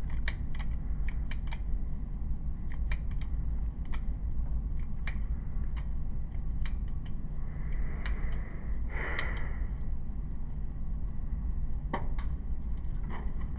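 Scattered light, sharp clicks and taps of handling over a steady low hum, with a brief hiss about nine seconds in.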